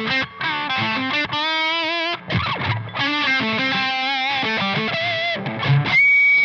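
Electric guitar played through a Madbean Runt, a ProCo Rat clone distortion pedal built around an LM308 op-amp: distorted single-note lead phrases, with a held, wavering note about a second and a half in and a sustained high note near the end.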